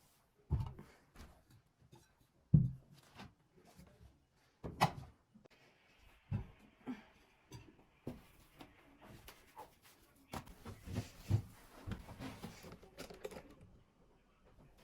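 Household objects being handled and set down during cleaning: a series of separate knocks and thuds every second or two, the loudest about two and a half seconds in, then a few seconds of rustling and rubbing near the end.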